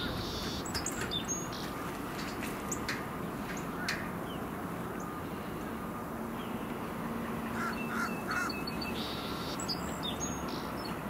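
A crow cawing in short calls, with three quick caws about eight seconds in. Beneath them is a steady low rumble from the distant diesel track geometry car as it approaches.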